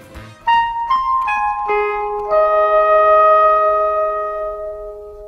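A short closing phrase on a piano-like keyboard: about five notes struck one after another roughly half a second apart, then held and left to ring out, fading away near the end.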